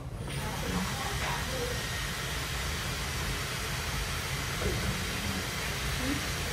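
A steady rushing hiss with a low rumble underneath, switched on abruptly at the start.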